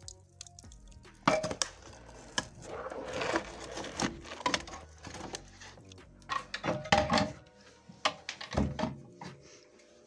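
Irregular clanks and scrapes of metal against metal at a furnace, a handful of sharp knocks with the loudest about a second in and around seven seconds.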